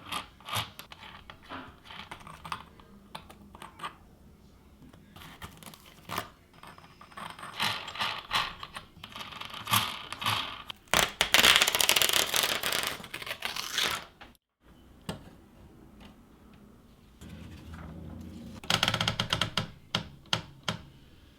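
1978 Sears Chevron typewriter being typed on: irregular key clacks, with two longer, denser runs of mechanical clatter, the louder one about halfway through.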